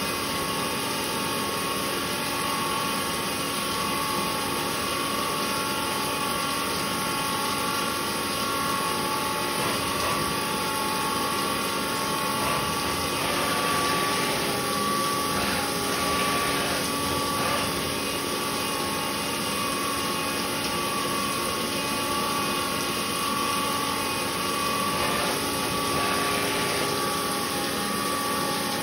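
A DIY CNC milling machine's spindle cutting a metal part on its rotary fourth axis under flood coolant: a steady whine over a constant hiss of spraying coolant.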